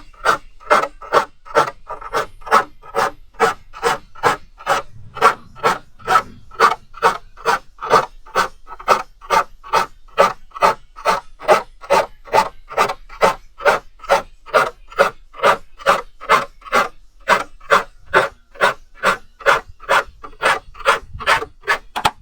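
Metal file being drawn across the teeth of a crosscut handsaw to sharpen them, in short, even rasping strokes at about two a second.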